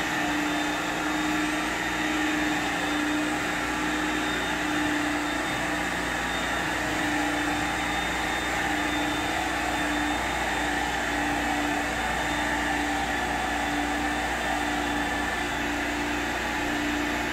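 Carpet extractor's vacuum running steadily as the cleaning wand is worked across a shag area rug, sucking water and soil back out of the pile during hot-water extraction. It is a constant whooshing suction with a steady low hum and a higher whine.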